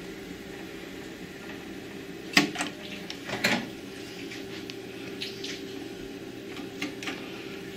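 Plastic clicks and clunks from a JVC TD-W354 double cassette deck as its eject buttons are pressed and the spring-loaded cassette doors pop open. The loudest is a sharp clack about two seconds in, then a rattling clunk a second later and lighter clicks near the end, over a steady low hum.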